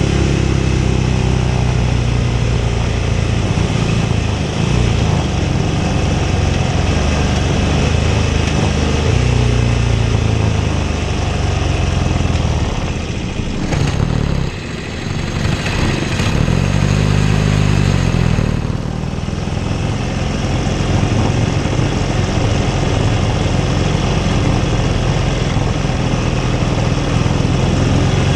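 Classic racing motorcycle engine running hard at race pace, loud and continuous, its pitch climbing and falling with throttle and gear changes. About halfway through it backs off briefly twice, then pulls again.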